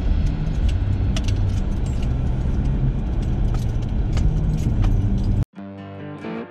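Pickup truck driving on a snow-packed road, heard from inside the cab: a steady low road rumble with frequent small rattles and clicks. About five seconds in it cuts off suddenly and electric guitar music begins.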